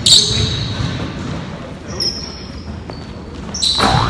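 Pickup basketball on a hardwood gym floor: sneakers squeak sharply, loudest right at the start and again near the end, over low thuds of running feet and the ball.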